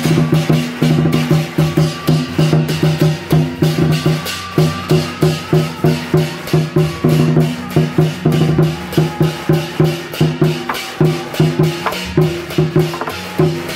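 Beiguan procession band playing: drum, gongs and cymbals beating a fast, steady rhythm, with ringing gong tones on each stroke.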